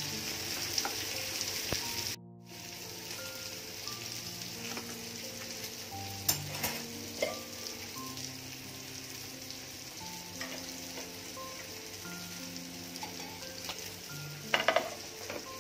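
Oil sizzling steadily in a pan of fried chaap (chops) left on the turned-off stove, under soft background music. There are a few light clicks partway through, and near the end a brief, louder sizzle as something is poured onto the hot coal set on foil in the pan for dhungar smoking.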